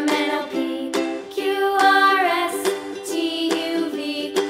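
Cheerful children's background music played on plucked strings, with no words sung.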